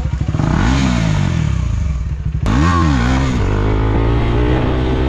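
KTM Duke 390's single-cylinder engine idling and being blipped, the revs rising and falling sharply about a second in and again a few times near the middle, then settling back to a steady idle.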